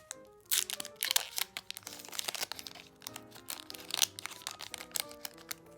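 A foil card-pack wrapper crinkling and tearing in repeated sharp crackles as it is opened by hand, over background music.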